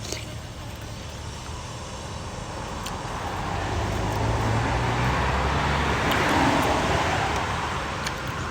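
A road vehicle passing close by, its engine and tyre noise growing louder over a few seconds and then fading, over a steady traffic rumble.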